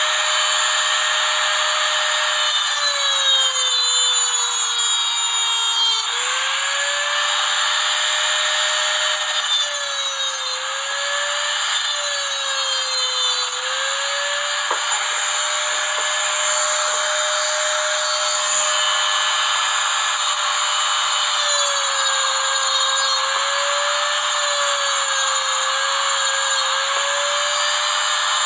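Dremel rotary tool with a cutoff wheel spinning at high speed and grinding through steel winch cable. Its high whine sags in pitch several times as the wheel is pressed into the wire, then climbs back.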